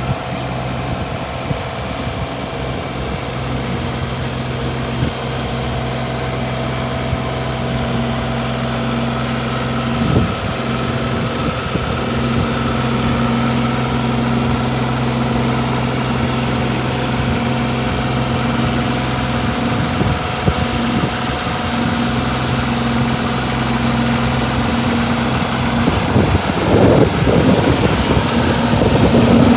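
Diesel engine of a Kobelco SK25SR-6E mini excavator idling steadily. A few short knocks come about ten seconds in, around twenty seconds, and in a cluster near the end.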